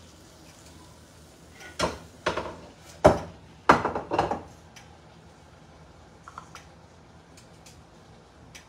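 Pots and kitchen utensils clattering: a handful of sharp knocks and clinks, a few ringing briefly, between about two and four and a half seconds in, then a couple of faint clicks.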